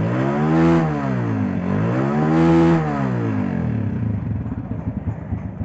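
Honda CG 125 single-cylinder four-stroke motorcycle engine, freshly rebuilt at the cylinder head, revved up and back down twice and then idling steadily.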